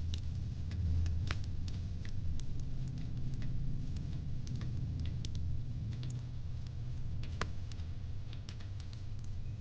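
Fire pit crackling: irregular sharp pops and snaps scattered over a low, steady rumble, with one louder snap about a second in and another past seven seconds.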